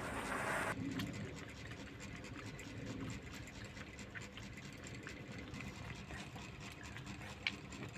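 Faint wet sucking and small clicks of a cat suckling milk from a small feeding bottle's teat, with one sharper click about seven and a half seconds in.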